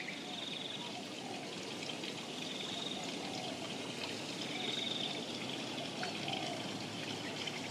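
Steady, even rushing outdoor background noise, like a faint hiss or distant flow, with no clear rhythm or single event.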